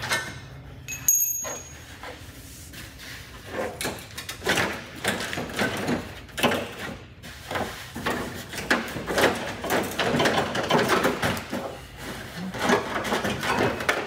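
Irregular clicking, knocking and clattering of tools and bolts as the front bumper of a Land Rover Discovery II is unbolted, growing busier about four seconds in as the bumper is worked free and pulled off.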